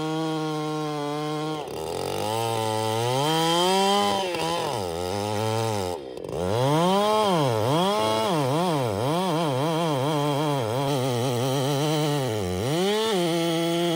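Two-stroke gas chainsaw cutting through the trunk of a large fir. The engine holds steady at high revs in the cut, then revs up and down over and over through the middle as the throttle is worked, and settles back to steady high revs near the end.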